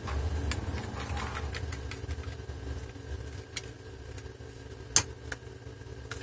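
Small screwdriver and screws clicking against a metal laptop hard-drive caddy as a drive is unscrewed from it and an SSD fitted, a few sharp separate clicks with the loudest about five seconds in. Under them runs a steady low hum from a digger, partly filtered out.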